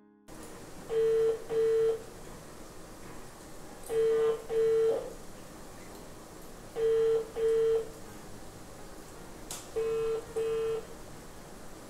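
Telephone ringback tone of an outgoing call that has not yet been answered: four double rings, each two short tones about half a second apart, repeating about every three seconds.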